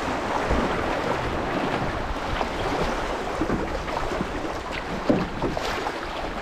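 Fast river water rushing over shallow rapids around a canoe's bow, with a constant wash and many scattered small splashes.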